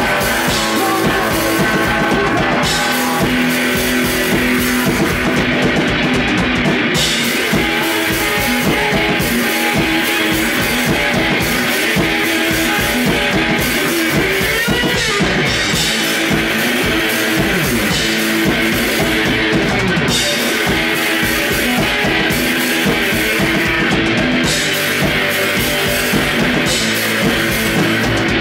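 Live rock music from a guitar-and-drums duo: electric guitar over a full drum kit, playing steadily and loud as heard from the crowd.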